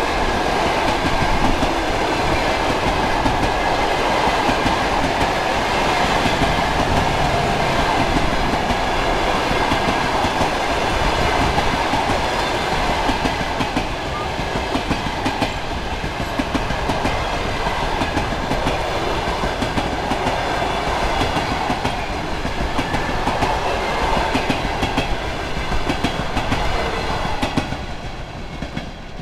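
Passenger coaches of a long-distance train passing at speed close by: a steady rolling rumble with the clatter of wheels on the rails. The noise falls away near the end as the last coach goes by.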